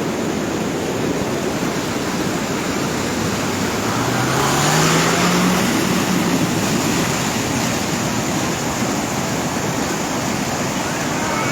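Floodwater rushing in a swollen river or drain, a loud steady rush of water. A faint low hum rises in pitch about four to six seconds in.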